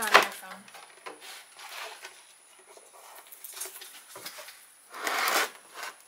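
Handling noise from a plastic bird feeder filled with seed: a sharp knock at the start, a few light taps, and a short rustle about five seconds in as it is lifted.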